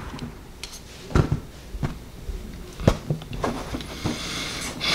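Quiet room with a handful of short, soft knocks and taps, about five spread over a few seconds.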